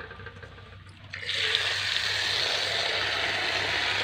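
Water from an outdoor tap running into a metal bowl of cut banana flower florets, rinsing them. The tap comes on suddenly about a second in and then pours steadily.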